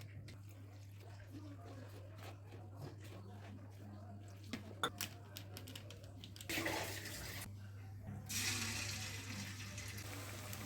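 Running water in two bursts, a short one about six and a half seconds in and a longer one from about eight seconds, after a stretch of light clicks and knocks.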